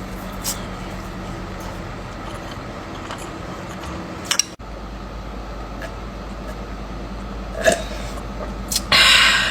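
Mouth and eating noises from someone eating chocolate cake, with scattered soft clicks over a steady low hum. There is a sharp click about four and a half seconds in and a brief loud noisy burst near the end.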